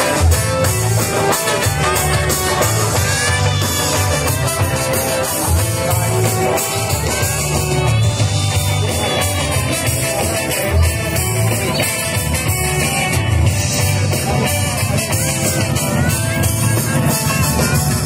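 Rock band playing live with a singer, a steady pulsing bass under the voice and instruments.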